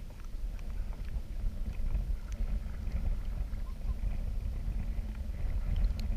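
Wind buffeting the microphone of a camera out on the open water in a kayak, a steady low rumble, with faint scattered clicks over it.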